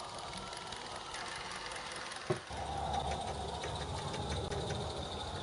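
A 16mm-scale live-steam garden railway locomotive running, with fast, even exhaust chuffs and mechanical clatter. A single sharp click comes a little over two seconds in, after which the sound is somewhat louder.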